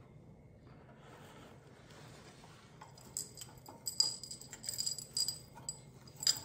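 Light metallic clinks and jangles mixed with rustling, starting about three seconds in: hands fixing a wired ribbon bow into a centerpiece while stacked bangle bracelets on the wrist jangle. The loudest clinks come about four seconds in and again near the end.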